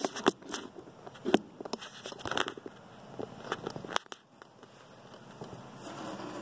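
Handling noise from a camera being moved and repositioned: a string of sharp clicks, knocks and rubbing, thinning out after about four seconds.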